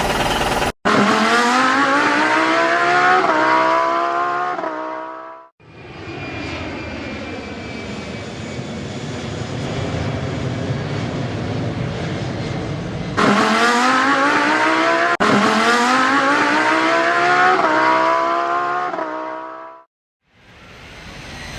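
Race car engine sound effect accelerating hard, its pitch climbing with two quick gear changes, spliced in several times with abrupt cuts. Between the runs there is a steadier, rougher engine drone with a slowly falling pitch, and the last run fades out shortly before the end.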